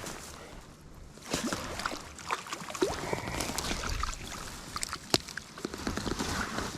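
Irregular splashing and sloshing at the water's surface as a small hooked brook trout is played in on a Tenkara line, with scattered knocks over a steady wash of water.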